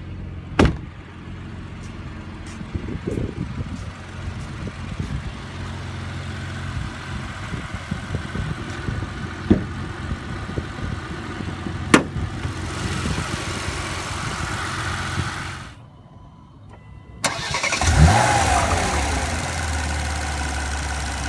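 A 2016 Porsche Macan Turbo's 3.6-litre twin-turbo V6 idling steadily, with a few sharp clicks from the hood release and hood latch being worked. After a brief break late on, the idle is louder and closer with the hood open, and there is a knock from the hood.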